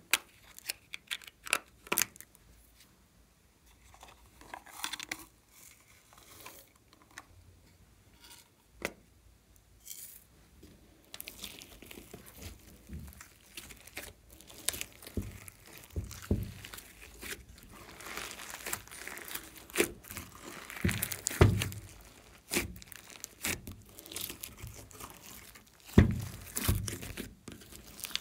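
Glossy slime mixed by hand with glitter and beads. Scattered sharp clicks and taps in the first few seconds, then from about eleven seconds on a continuous sticky stretching and squishing sound with crinkling and dull thumps as the slime is pulled apart and pressed down.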